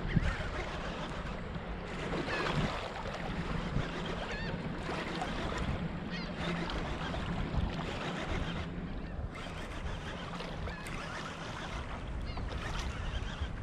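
Water sloshing against a plastic kayak hull with wind on the microphone, and seabirds calling overhead in short wavering cries.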